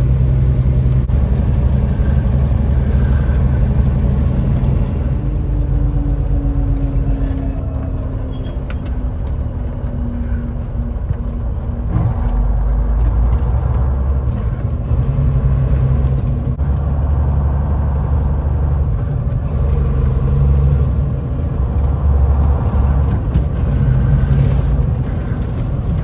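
Cabover semi truck's diesel engine running steadily, heard from inside the cab as the truck drives, with road noise. A few seconds in, a faint tone slides slowly lower in pitch over several seconds.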